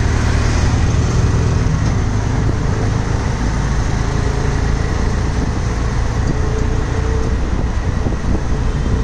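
Steady road traffic: the running engines and tyre noise of cars and motorcycles passing close by, heaviest in the first two seconds.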